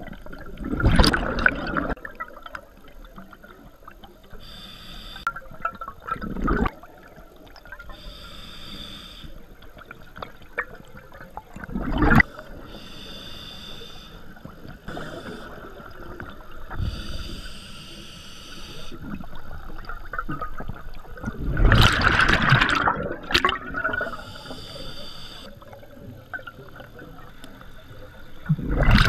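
Scuba diver breathing through a regulator underwater: a hiss on each inhale, then a loud gush of exhaled bubbles, repeating about every five to six seconds.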